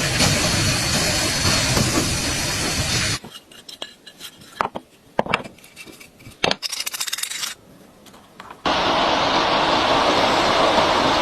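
Loud steady abrasive noise of a power tool working on metal parts, which stops about three seconds in. Then come scattered metallic clinks and knocks of parts being handled, and the abrasive noise starts again near the end.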